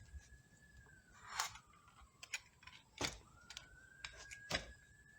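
Metal transmission parts, the clutch drums, being handled on a bench: three sharp knocks about a second and a half apart among lighter clinks. A faint high thin tone rises and falls twice in the background.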